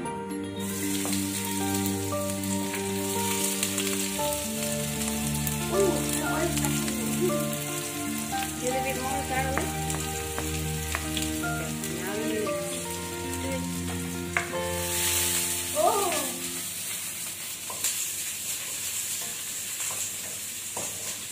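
Chopped onion sizzling as it fries in a hot wok, stirred with a wooden spatula; the sizzle starts about half a second in. Background music plays underneath for most of it.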